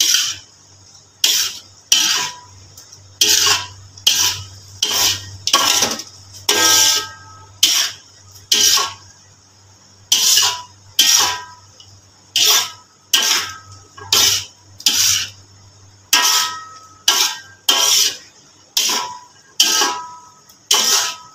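Metal spatula scraping and knocking against a wok while stir-frying snow peas, about one stroke a second, some strokes with a short metallic ring.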